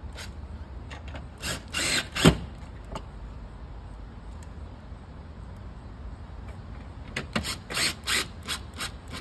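Cordless drill/driver driving screws into the storm door's top expansion piece in short trigger bursts: a couple of bursts about two seconds in, the loudest ending with a sharp hit, then a quick string of short bursts near the end.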